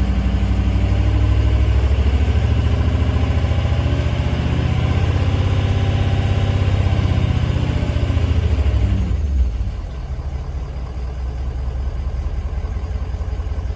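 Ford 6.0L Power Stroke V8 turbo-diesel engine held at raised revs, around 1,900 RPM, during a cylinder power balance test. About nine seconds in the throttle is let off and it drops back to a lower, quieter idle.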